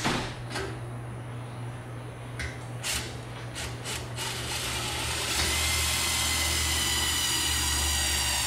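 Cordless drill driving a self-tapping tek screw into the sheet-metal bracket of a fluorescent fixture. It runs steadily for about four seconds, starting about midway, after a few clicks and knocks of the parts being handled.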